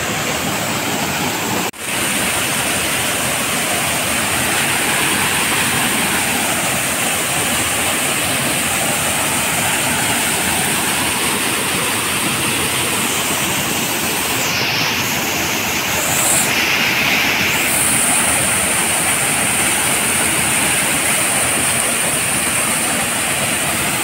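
Waterfall pouring over rock into a pool: a steady, loud rush of falling water, with a brief dropout about two seconds in.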